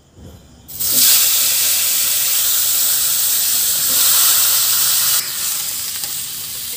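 Cut papaya and potato pieces dropped into hot oil in an iron kadai, setting off a loud frying sizzle that starts suddenly about a second in and eases a little after about five seconds as they are stirred.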